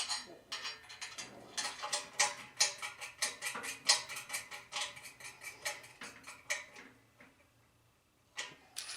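Quick metallic clicking and clinking as a bolt is fastened through a steel blade into a steel cement mixer drum, which rings after each click. It stops near the end, with a few last clicks just before the end.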